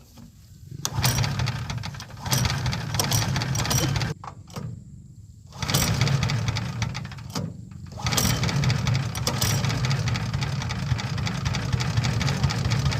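Small engine of a mini rice thresher being started: it catches and dies away three times, then keeps running steadily from about eight seconds in.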